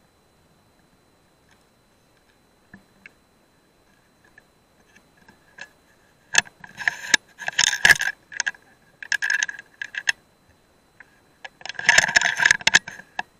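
Handling noise picked up by the rifle-mounted scope's own microphone: clusters of clicks, scrapes and rattles, starting about six seconds in and coming in three bursts.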